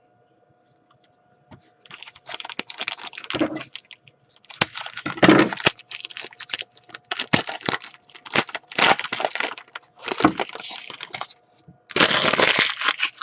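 A hockey trading card pack being handled, with irregular crinkling of the wrapper and clicking and sliding of the cards, starting about two seconds in.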